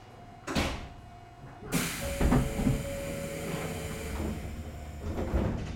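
Compressed air hissing with a few dull thuds from an Izuhakone Railway 5000 series electric train standing at a platform, typical of its pneumatic doors closing before departure. A short hiss about half a second in, then a longer, louder hiss from just under two seconds in that fades near the end.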